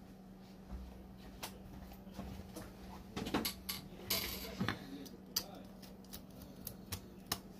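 Scattered sharp clicks and small metal clinks of hand tools being handled and worked at the opened iPad 7's logic board, with a brief scrape about four seconds in. A steady low hum runs underneath.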